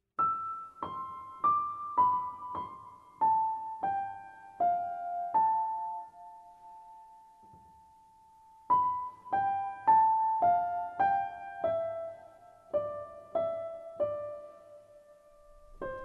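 Background piano music: a slow melody of single struck notes falling in two phrases, with one long held note between them.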